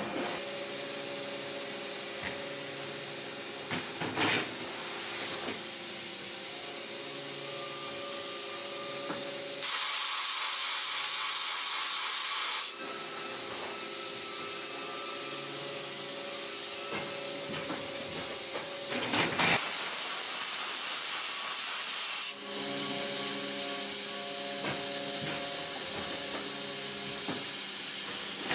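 CNC turret lathe running automatic machining cycles on metal parts with coolant spraying. It repeats about every nine seconds: a high whine rises and then holds steady, then a few seconds of hiss, and a sharp knock falls between cycles.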